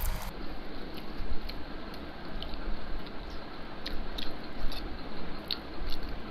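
Two people eating spicy instant ramen noodles: chewing at close range, with scattered short clicks.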